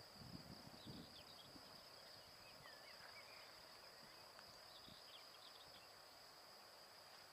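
Faint, steady high-pitched insect trill, with a few faint bird chirps scattered through it and some soft low knocks in the first second.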